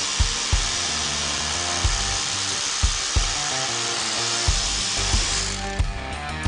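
Bosch GBH 2-24 DRE rotary hammer running steadily, with a hissing, rattling noise that stops about five and a half seconds in. Background music with a steady beat plays throughout.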